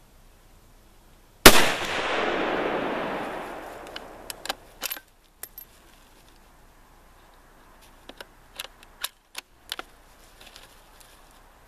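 A single shot from a Savage Axis bolt-action rifle in 7.62x39, its report rolling on as an echo that fades over about two seconds. Then come two groups of short metallic clicks as the bolt is worked.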